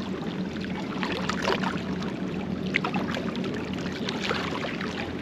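Steady wind on the microphone over small waves lapping and splashing against the rocks at the water's edge.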